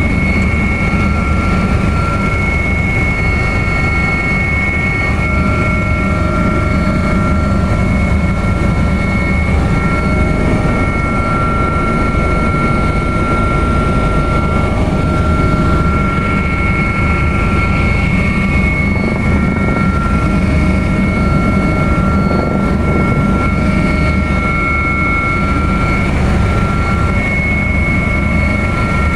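Helicopter running, heard from inside the cabin: a loud, steady rotor and engine noise with a pulsing low end and two steady high whines over it.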